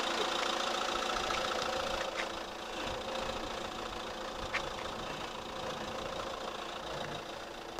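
Motorhome engine idling steadily, slowly growing a little quieter.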